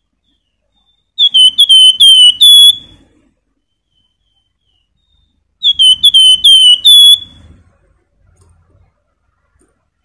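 Caged flamboyan (wergan jawa) songbird singing two short flute-like whistled phrases about four seconds apart, each a quick run of about five high notes that dip in pitch, the last note held a little higher.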